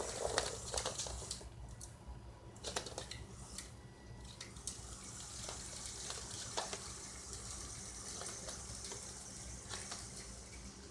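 Small battery-powered robot tank running on its plastic tracks: a steady high hiss from its geared motors and treads, with scattered clicks.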